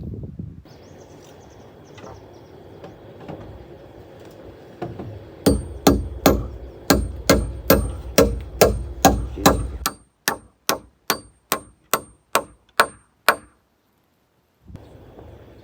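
Hammer driving nails into timber: a run of about twenty quick blows, two to three a second, each with a bright metallic ring, starting about five seconds in and stopping shortly before the end.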